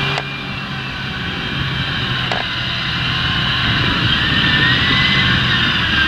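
John Deere 8360RT tractor's six-cylinder diesel working hard under load, pulling an eight-furrow reversible plough through heavy ground. It runs steadily, with a high whine that rises a little about four seconds in, and there are two sharp clicks, one just after the start and one about two seconds in.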